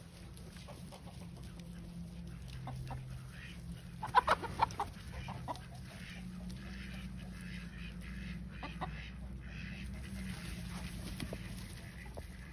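Chickens clucking, with a quick run of short, loud clucks about four seconds in and scattered softer ones after, over a low steady rumble.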